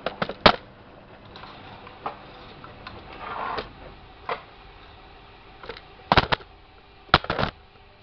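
Washing machine running a wash cycle, its motor humming steadily under irregular clicks and knocks as the drum turns, with a louder cluster of clunks about six and seven seconds in.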